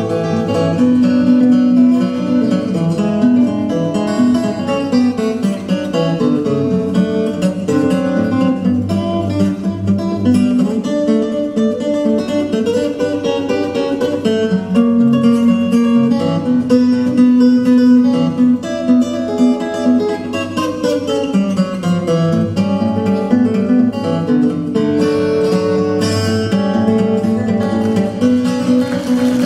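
Instrumental music led by a plucked and strummed acoustic guitar, playing a continuous melody.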